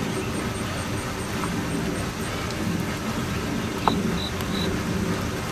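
Steady hiss of light rain falling, with a sharp click about four seconds in followed by three short high chirps.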